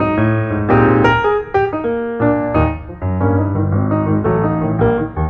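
Background piano music, notes struck several times a second.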